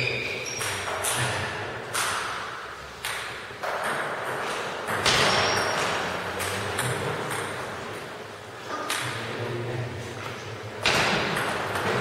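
Table tennis ball being hit back and forth in a rally: sharp, irregular clicks of the celluloid ball off the rubber bats and bounces on the table, each ringing on in the hall's echo.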